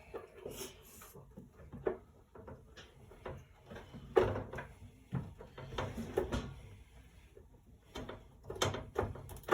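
Irregular knocks, clunks and scrapes from hands working at a vent opening to reach a trapped animal, with loud clusters about four and six seconds in and again near the end.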